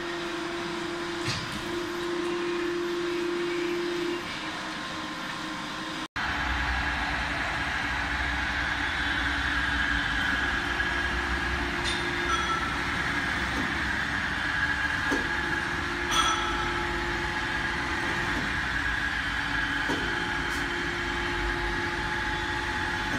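Steady machine hum with a few light clicks from barbell-shaft straightening presses at work. About six seconds in it cuts briefly and comes back as a deeper, steadier motor hum with a higher whine, from the electric motor driving a straightening press.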